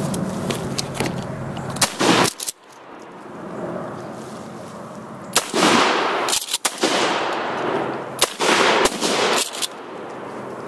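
Several shotgun shots fired in quick succession at ducks on the water, in a cluster about two seconds in and more between about five and nine seconds in, each trailing off in an echo.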